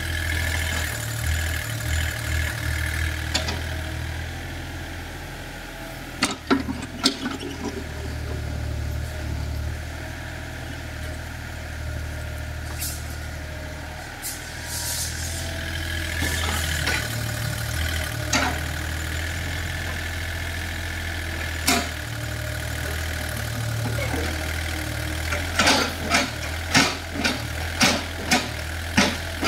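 Komatsu PC30UU mini excavator's diesel engine running steadily while it digs, with scattered sharp knocks from the bucket and arm working the soil, a quick run of them near the end.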